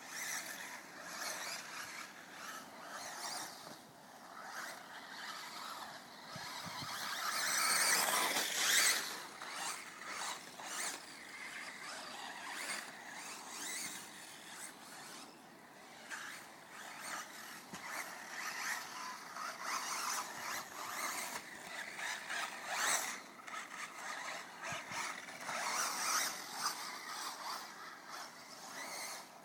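Team C TC02c radio-controlled off-road buggy running around a dirt track, its motor whine and tyre scrabble rising and fading as it comes near and moves away, loudest as it passes close about eight to nine seconds in.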